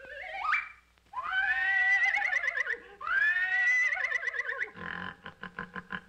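Cartoon bull moose calling: a short rising call, then two long whinny-like calls, each ending in a rapid wobble. A quick run of thumps follows near the end as the moose bounds along.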